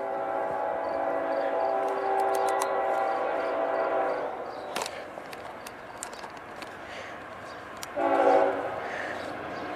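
Freight locomotive air horn sounding: a long blast of several steady tones lasting about four seconds, then a short blast about eight seconds in, with the noise of the moving train in between.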